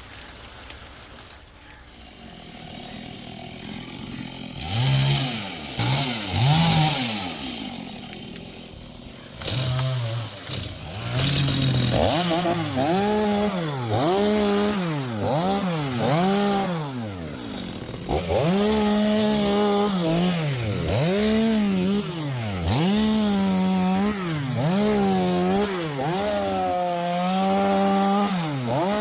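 Stihl two-stroke chainsaw, revved in short blips from about five seconds in, then cutting wood. From about twelve seconds on, its engine pitch dips and recovers again and again as the chain loads up in the cut.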